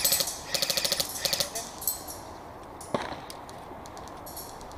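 Airsoft electric rifle firing three quick full-auto bursts of rapid clicks in the first second and a half, then a single sharp crack about three seconds in.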